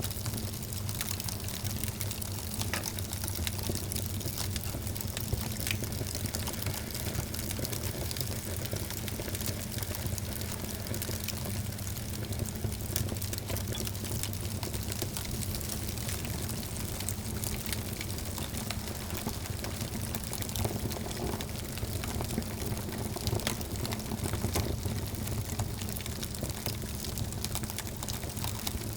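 Wood fire burning in a fireplace, crackling and popping with many small sharp snaps over a steady low rumble.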